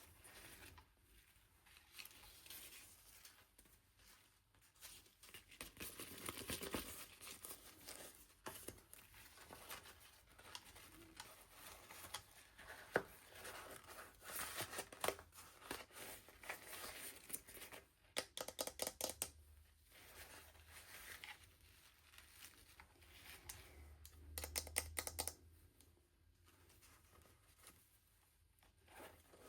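Packaging being torn and crinkled open by hand, in irregular bursts of rustling with a couple of short runs of rapid clicking.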